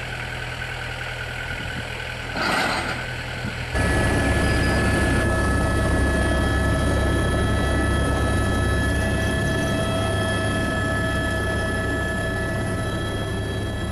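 Helicopter turbine engine running with a steady high whine over the low drone of the rotor, heard from inside the cockpit. A short rush of noise comes about two and a half seconds in, and about four seconds in the low drone grows louder and stays.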